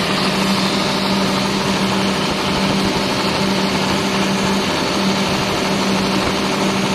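Engine running steadily at a constant speed, with an unbroken hum.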